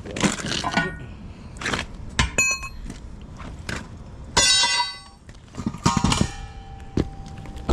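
Steel tire-changer bar and rim knocking and clanking as a semi truck tire is worked over the edge of its steel rim, with several sharp metallic strikes that ring on briefly, the longest about halfway through.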